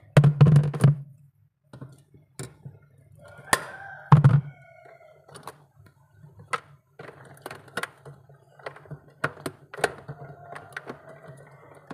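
Knocks, thunks and sharp clicks of hands and tools working inside a refrigerator freezer compartment, at the evaporator coil and the defrost thermostat wiring, with the loudest thunk about four seconds in.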